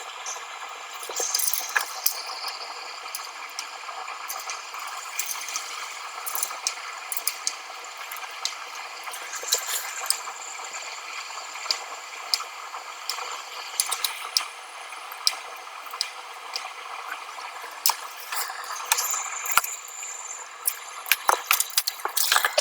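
Small metal clicks, clinks and rattles of amplifier parts and screws being handled during reassembly, scattered irregularly over a steady hiss, with a quicker run of clicks near the end.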